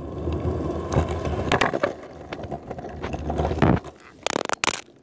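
Longboard wheels rolling over a concrete sidewalk: a steady low rumble with several sharp clicks. The rolling stops a little before the end, followed by a few loud knocks.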